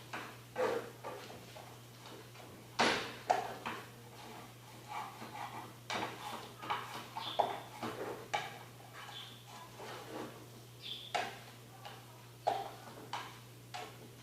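Irregular knocks, clinks and scrapes of a kitchen utensil against a pan or bowl while eggs are being cooked and stirred, over a steady low electrical hum.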